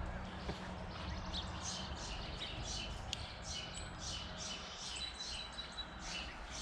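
Birds chirping rapidly and repeatedly, several short calls a second, over a low, steady background rumble.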